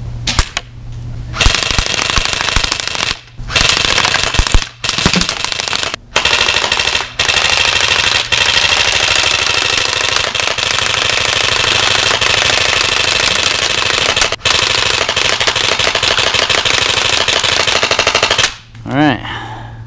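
Airsoft guns firing on full auto, a fast rattle of shots with BBs smacking into an LCD computer monitor's screen. It comes in bursts with short breaks over the first several seconds, then runs as a near-continuous stream that stops sharply near the end.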